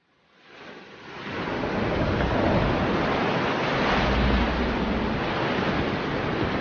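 Rushing wind effect that swells out of a brief silence over the first couple of seconds and then holds steady, with a deep hum underneath that is strongest about four seconds in.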